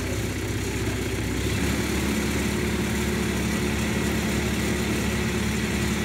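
Heavy machine engine running steadily while an excavator is hoisted on crane cables; its note steps up and grows fuller about a second and a half in.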